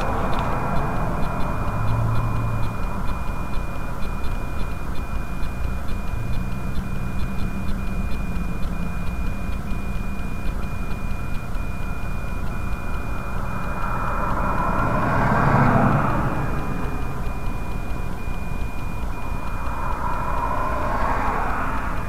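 Traffic passing on the highway beside a parked car: one vehicle goes by with a swelling and fading rush about two-thirds of the way in, and a smaller pass follows near the end, over a steady low rumble.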